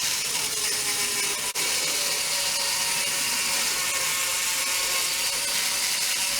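Dremel rotary tool grinding out the bore of a hardened-steel sprocket, running steadily with a hiss high up and a faint steady whine. It has a very brief break about a second and a half in.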